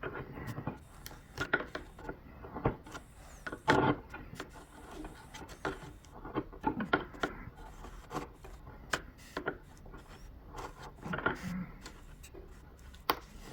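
A sharp screwdriver scraping and prying old headlight sealant out of a plastic headlight housing: uneven scratching strokes with frequent small clicks, a few louder scrapes among them.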